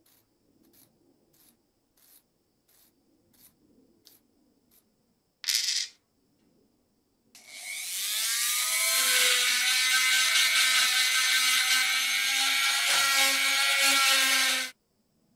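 A small metal part scrubbed by hand on a brass wire brush in faint, regular strokes, then a brief loud rasp. About seven seconds in a handheld rotary tool with a small brass wire brush bit starts up with a rising whine and runs steadily, brushing rust off a threaded steel lighter part, then stops near the end.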